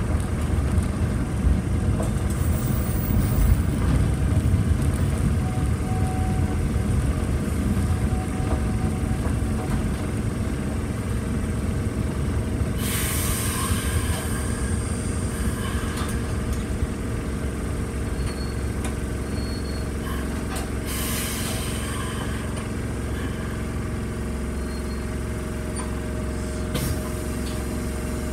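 Fukui Railway RETRAM low-floor tram heard from on board, running slowly with a low rumble that eases as it comes to a stop. Two loud hisses of released air come about halfway through and again about three-quarters in, then a steady hum from the standing tram.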